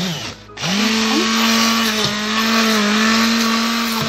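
Immersion (stick) blender puréeing pumpkin and carrot soup in a pot. After a short first pulse, the motor runs steadily from about half a second in, with a slight wobble in pitch as it meets the chunks and a brief dip near the end.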